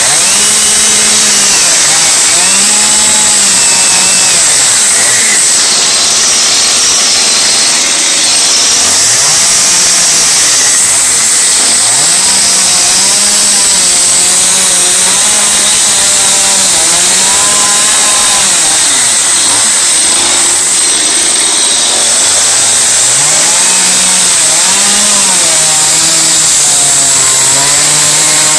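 Stihl MS 181 two-stroke chainsaw with a carving bar running at high revs and cutting into English oak, its engine pitch repeatedly falling and rising as the cut goes on.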